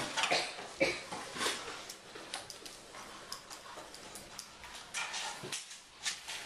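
Busy classroom noise: irregular short clicks and knocks from pencils and desks, mixed with brief children's voice sounds.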